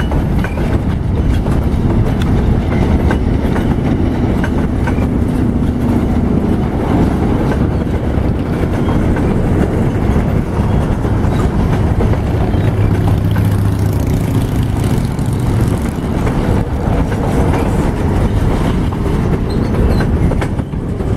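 Freight train boxcars rolling past close by: a steady rumble of steel wheels on rail, with clicking as the wheels pass over rail joints.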